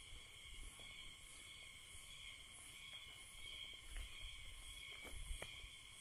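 Faint, steady chorus of insects shrilling at a few fixed high pitches, with soft low footfalls and a couple of light clicks in the second half.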